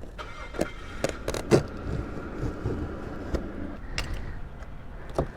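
Knocks and taps from handling a large cardboard shipping box, scattered irregularly over a low steady rumble.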